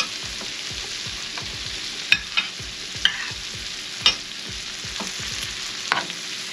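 Chopped onions and garlic sizzling in butter in a hot pan, stirred with a utensil that knocks against the pan a few times, sharply about two, three, four and six seconds in.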